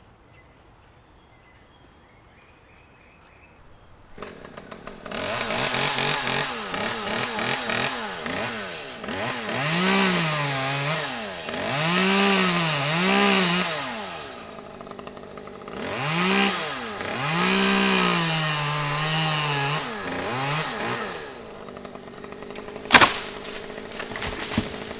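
Two-stroke chainsaw coming up from a low idle about four seconds in, then revved hard in several rising and falling surges before dropping back toward idle. A single sharp crack follows near the end.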